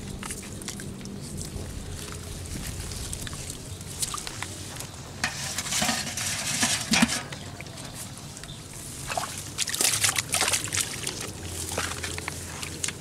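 Muddy ditch water splashing and sloshing as a plastic basket scoops catfish and tips them with water into a bucket. There are two louder spells of splashing and pouring, about six seconds in and again about ten seconds in.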